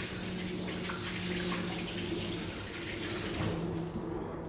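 Water running from a tap into a sink while hands are washed under it, a steady splashing hiss.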